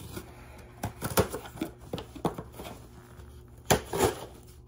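Boxes and packaging being handled and unpacked by hand: a string of short taps and clicks with light rustling between them, loudest about a second in and again near the end.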